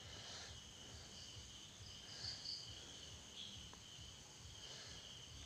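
Faint, steady insect chirping, like crickets, with a slightly louder patch about two seconds in.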